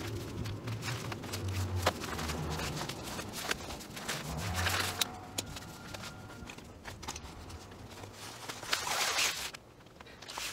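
A long line rope being dragged across asphalt and laid out in loops: uneven scraping and rustling of the rope on the pavement, with scattered clicks and footsteps, and a louder stretch of scraping near the end.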